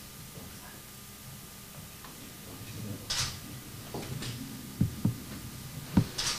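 Quiet room ambience with a faint low murmur, broken by two short hisses and a few soft knocks in the second half.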